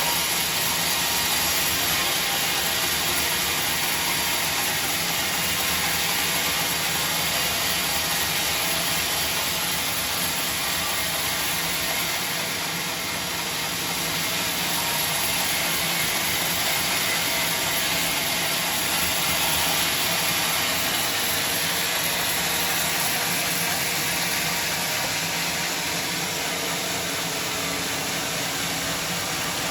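Band sawmill running steadily, a continuous loud machine noise with a steady low hum underneath and a slight dip in level about halfway through.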